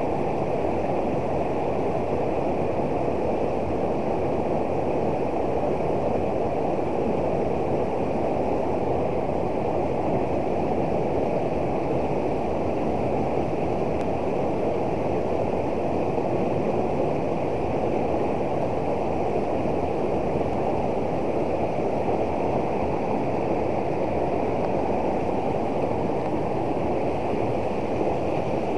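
Muddy river running fast after rising, pouring steadily over a small weir in a deep, even rush of churning water.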